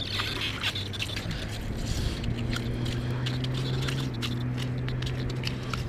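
A steady low engine drone that steps up in pitch about two seconds in and drops back about four seconds in, with light scattered clicks over it.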